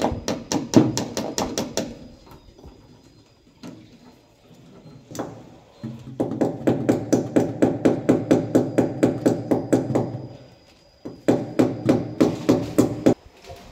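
Hammer tapping the nails of cable clips into a wall to fix a fibre-optic drop cable, in quick runs of light blows about five a second. There is one short run at the start, a longer one from about six to ten seconds in, and another near the end.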